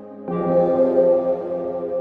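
Background music: slow, held ambient chords, with a new chord coming in about a third of a second in.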